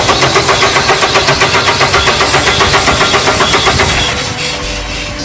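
Starter motor cranking a common rail diesel engine that does not catch, a rhythmic beat of about five compression strokes a second, with the injector overflow lines disconnected for a back-leakage test. About four seconds in the cranking stops and a quieter steady hum remains.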